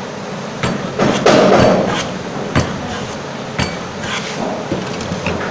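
Hammering in a woodworking shop: a string of sharp, irregular knocks roughly a second apart, with one louder, longer noisy burst about a second in.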